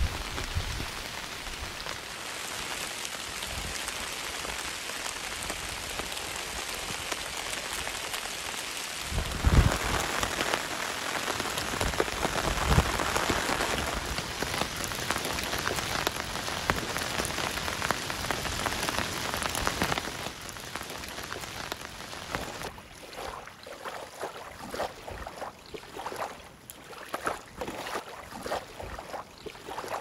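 Steady rain falling, growing heavier about nine seconds in, then thinning near the end to scattered separate drips.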